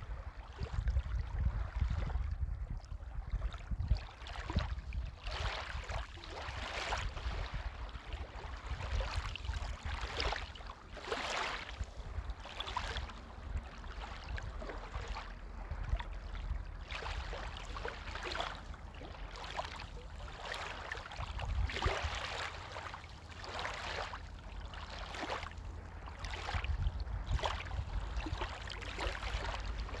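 Small lake waves lapping on a pebble shore, each wash of water rising and falling every second or two, over a low steady rumble.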